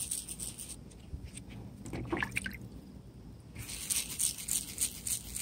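Wet 3,000-grit sandpaper rubbed quickly back and forth over a plastic headlight lens: a run of short, scratchy, squishy strokes, with a quieter pause in the middle.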